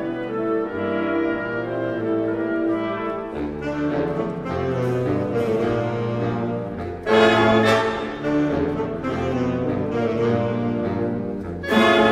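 Orchestra playing an overture with the brass section to the fore: held trombone and trumpet chords over a moving bass line. A loud accented brass chord comes in about seven seconds in and another near the end.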